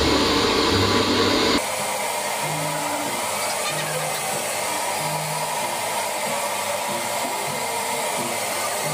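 Handheld hair dryer blowing with a steady rush of air, its level stepping down about one and a half seconds in.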